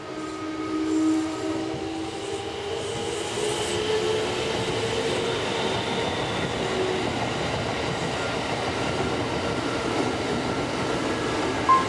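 Kintetsu electric commuter train passing close by: wheels running on the rails, with a few held tones over the noise as it approaches, then a steady, dense rumble as the cars go past.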